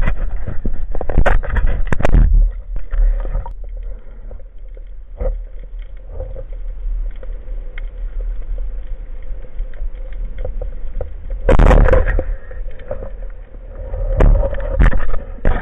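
Water splashing and sloshing against an action camera's housing at the sea surface for the first two seconds, then muffled underwater noise as the camera goes under, with two loud surges of rushing water, one about twelve seconds in and another near the end.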